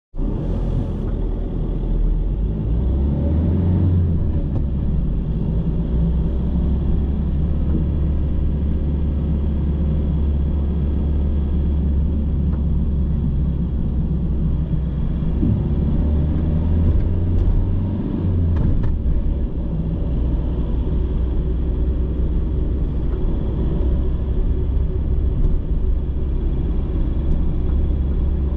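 A car driving through city traffic: a steady low rumble of engine and road noise.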